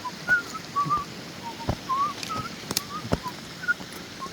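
A person whistling a tune: a string of short notes that waver and step up and down in pitch. A few sharp clicks are heard along with it.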